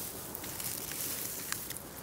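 Grass and dry fallen leaves rustling, with a few sharp crackles, as a hand parts them and lifts a small toy car out. The rustle swells about half a second in and eases off after a second.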